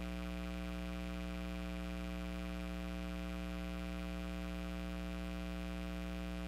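Steady electrical hum with a buzzy edge, unchanging in pitch and level throughout.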